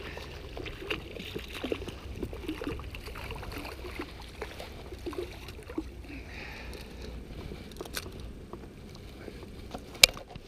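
Shallow water sloshing and splashing as a striped bass is landed in the wash, with scattered small knocks and one sharp click near the end.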